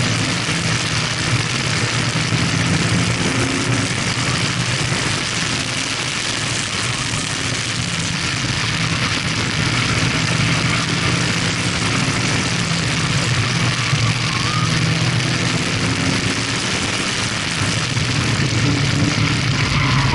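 Mazda MX-5 Miata's four-cylinder engine running hard during an autocross run, its pitch shifting a little as the driver works through the cones. Heard from inside the open cockpit, with steady wind and road noise.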